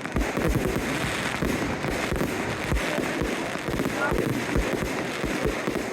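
Fireworks display: a rapid string of low booms from bursting shells, about three to four a second, over steady crackling.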